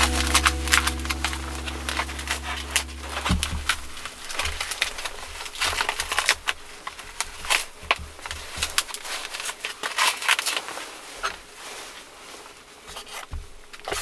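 Plastic cling film crinkling as it is peeled off a foam tray of raw meat: a run of sharp, irregular crackles.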